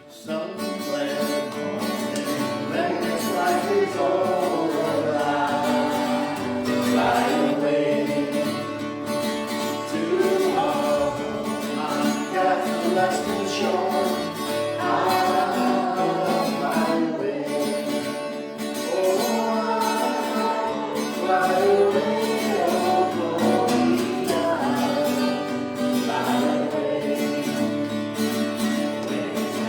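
Gospel-style worship song: several voices singing together over guitar accompaniment, starting abruptly at the opening.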